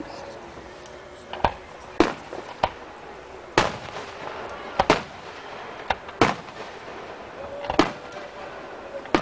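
Aerial fireworks shells bursting: about ten sharp bangs at irregular intervals, a couple of them coming in quick pairs.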